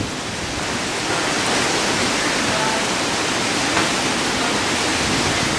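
Strong storm wind and heavy rain, a loud steady rushing noise.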